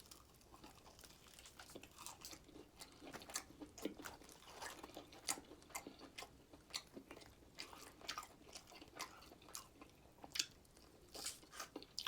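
Close-up mouth sounds of someone biting and chewing crispy fried food: faint, irregular crunching and smacking.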